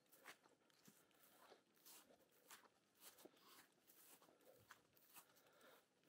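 Faint footsteps of a person walking uphill on a country path, about two steps a second, each with a light crunch underfoot.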